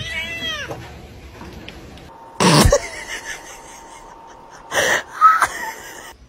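A cat's short meow, then a dog snorting hard twice, about two and a half seconds apart, with its nose pressed to a bare foot.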